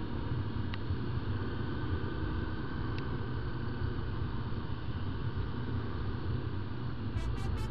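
Honda XLR 125's single-cylinder four-stroke engine running steadily while the bike cruises, with wind and road noise.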